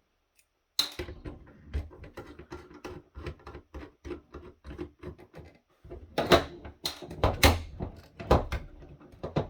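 A quick run of small clicks, taps and knocks as the plastic parts and docking connector of a video-phone docking station are handled and worked loose. The knocks grow louder and heavier for the last few seconds.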